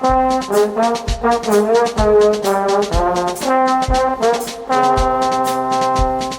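Brass ensemble music: sustained brass notes in chords, changing about once a second, over a steady low beat.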